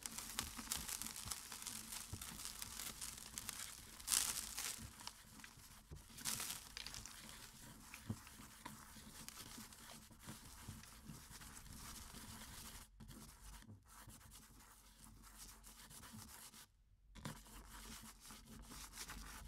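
Sand being pushed and brushed by hand across a backlit glass drawing surface: a faint, scratchy rustle with a couple of louder swishes about four and six seconds in, and two brief drops to silence in the later part.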